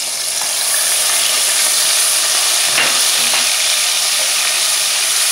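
Ginger-garlic paste sizzling in hot oil in an aluminium pressure cooker, growing louder about a second in, while a steel spoon stirs it.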